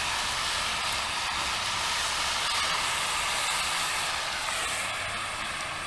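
Cast-iron Dutch oven sizzling over a campfire as chicken and vegetables fry in coconut oil: a steady hiss.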